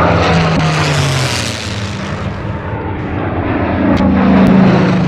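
World War II piston-engined fighters, a P-51 Mustang followed by a P-63 King Cobra, both with liquid-cooled V-12 engines, flying a pass: propeller and engine drone falls in pitch as one goes by about a second in. A second engine drone then swells to its loudest near the end.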